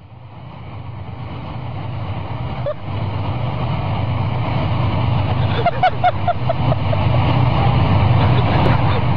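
Several tank diesel engines running in a steady low drone, fading in over the first few seconds. A quick run of short high squeaks comes about six seconds in.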